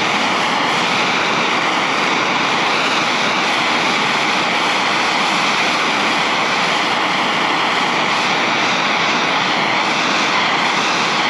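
Propane torch burning with a loud, steady rushing hiss of flame that holds even throughout.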